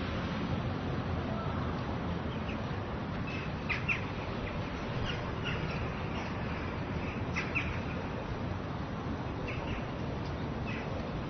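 Small-town street ambience: a steady background hum of the street with songbirds chirping in short, scattered bursts, a few clustered around four seconds in and again past seven seconds.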